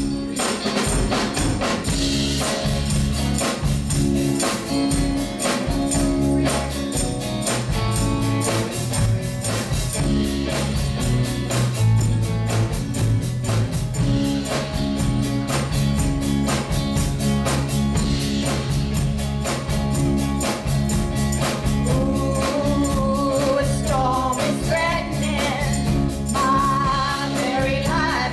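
Live rock and roll band playing: a drum kit keeping a steady beat under electric guitars and bass, with a tambourine shaken along and a singing voice.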